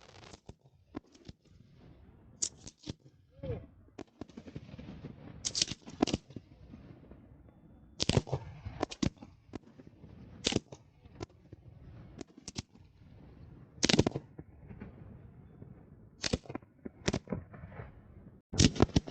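Fireworks display: sharp bangs every second or few, irregularly spaced, with fainter crackling between them.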